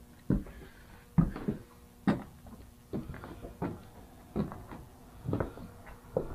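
Footsteps on old wooden attic floorboards: a dull thud at walking pace, roughly one step a second.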